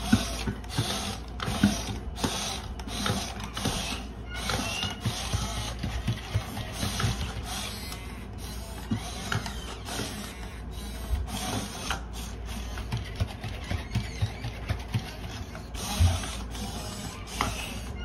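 Robot dogs, an I-Cybie and a Sony aibo, moving their legs and heads: small gear motors whirring and grinding in short, uneven spells, with clicks and taps of their feet on a wooden floor and one louder knock near the end.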